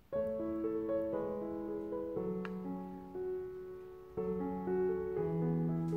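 Background piano music starts suddenly: a gentle melody of held notes over a lower accompaniment.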